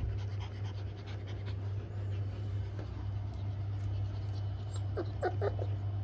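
Adult Australian Shepherd panting steadily, with a few short squeaky sounds about five seconds in, over a steady low hum.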